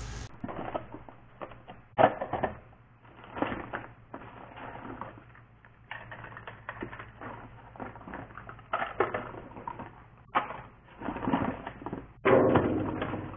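Hands working in a car's engine bay, handling ignition parts, their cardboard boxes and tools: a busy run of irregular clicks, rattles and crinkling, with sharper knocks about two seconds in, near ten seconds and again near twelve.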